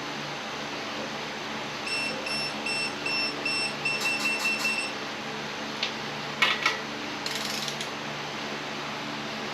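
Digital torque wrench beeping, a quick series of short high beeps for about three seconds: the signal that the bolt has reached its set torque. A few metallic tool clicks and a clink follow.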